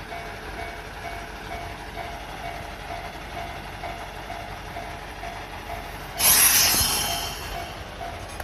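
Noto Railway diesel railcar idling at the platform, with a faint repeating electronic beep behind it. About six seconds in comes a sudden loud burst of air hiss that fades over a second or so, typical of the air brakes releasing just before the railcar pulls away.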